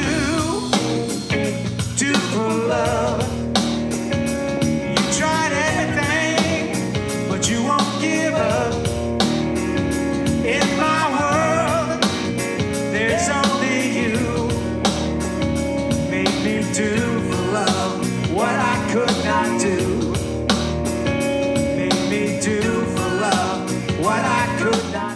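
A live band playing a song: electric guitar and bass guitar with a man singing over a steady beat.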